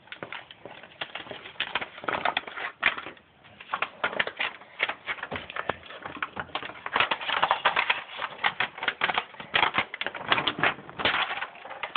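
Brown paper backing crackling and rustling as it is peeled off a self-adhesive sound-deadening mat, in many quick irregular crackles with louder bursts of them.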